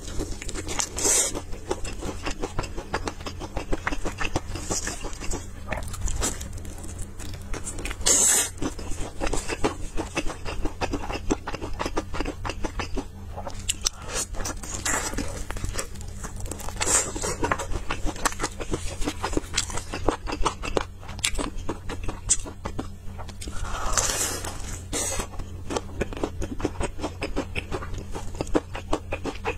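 Crispy fried chicken being bitten and chewed close to the mouth, the battered crust crunching and crackling, with several louder bites spread through.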